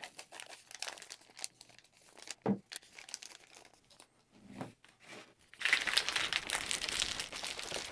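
Foil stick pack of pre-workout powder crinkling as it is emptied into a plastic shaker cup, with a couple of soft knocks. About two-thirds of the way in, the shaker bottle is shaken hard, its ice cubes and water rattling and sloshing until the end.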